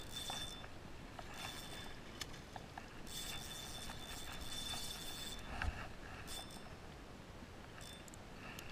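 Spinning reel being cranked in spurts, its gears giving a high whir as line is retrieved against a hooked fish, with the longest spell of winding near the middle. A single sharp knock a little past halfway.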